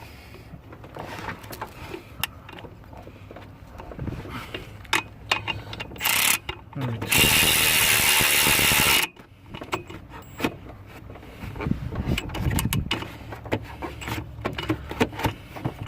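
Snap-on cordless extended-head ratchet running under power for about two seconds, tightening a fitting, with a shorter burst just before. Clicks and knocks of the tool and fittings being handled come and go around it.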